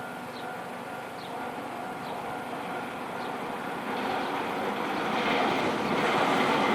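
Level-crossing warning bell ringing in a steady repeating pattern while a Nankai Electric Railway train approaches, its noise growing steadily louder over the second half.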